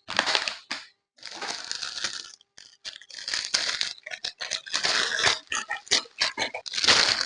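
Dog snorting and snuffling in rapid, irregular rough bursts.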